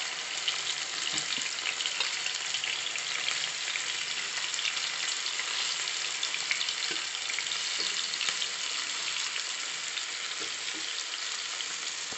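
Marinated chicken drumsticks and slit green chillies sizzling in shallow hot oil in a frying pan as more drumsticks are laid in one after another. A steady crackle full of small spattering pops.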